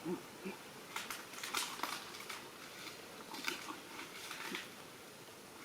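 Two short, faint animal calls right at the start, then scattered rustling and scratching, as of an animal moving about or being handled.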